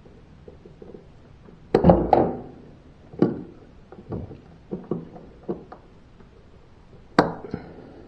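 Pliers working at the shock-absorber pins of a washing machine drum, giving a series of separate clicks and knocks. The loudest knocks come about two seconds in and again near the end.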